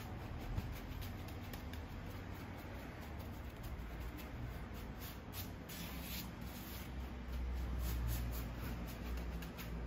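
Wide flat brush sweeping a thin oil glaze across a stretched canvas: faint, irregular scratchy strokes over a low steady hum.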